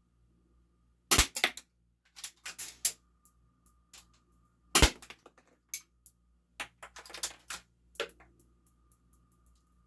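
Game Face M311 full-metal spring-powered airsoft pistol, a 1911 replica, being fired and cocked by hand between shots. Two loud sharp snaps come about a second and nearly five seconds in, with runs of metallic clicking and rattling from the slide being racked between and after them.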